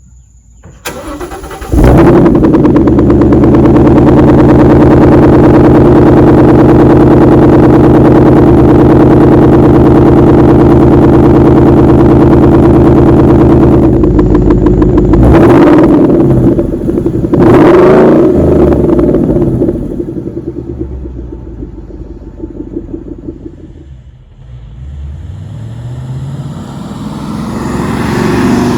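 2014 Mustang GT's Coyote 5.0 V8 starting about two seconds in and running at a steady fast idle through its aftermarket axle-back exhaust, then revved twice briefly, settling, and rising in revs again near the end.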